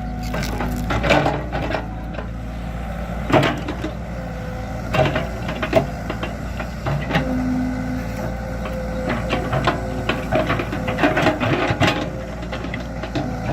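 Excavator's diesel engine running steadily with a hydraulic whine over it, broken by irregular sharp knocks and cracks as the bucket digs.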